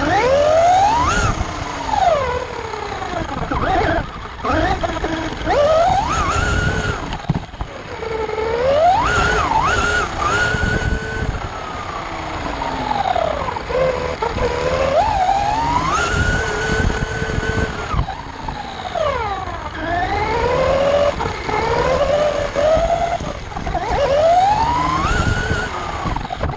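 Vandal 4WD RC buggy's brushless electric motor whining, its pitch rising and falling again and again as the throttle is worked. Wind and tyre noise rush underneath, picked up by a camera riding on the buggy's rear wing.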